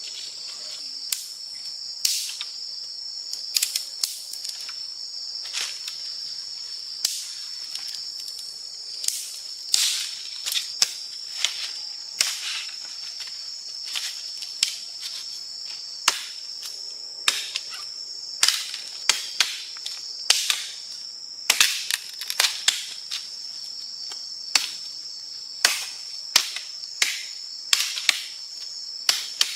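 Steady high drone of forest insects, with many irregular sharp snaps and clicks over it, some in quick runs, coming more often in the second half.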